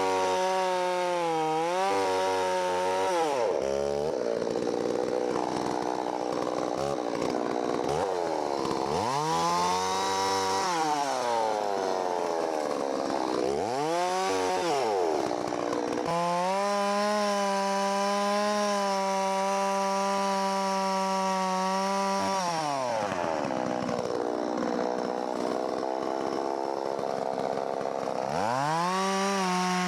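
Holzfforma 660 clone two-stroke chainsaw at full throttle cutting through a thick log the owner takes for oak. The engine pitch sags deeply and climbs back several times as the chain digs in and frees up, between stretches of steady high revs.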